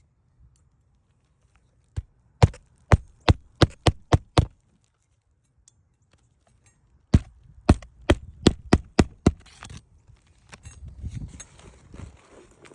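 Hammer driving roofing nails into a new 3-tab asphalt shingle: two runs of about seven quick strikes each, one nail per run. Faint scraping and rustling follows near the end.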